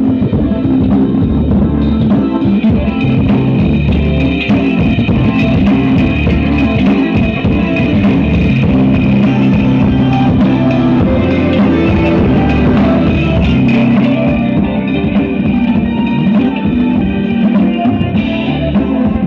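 Loud music with guitar and drums, played through a dual-channel 5200 amplifier board driving woofers, one of them mounted in a bucket with no cabinet, as a sound test.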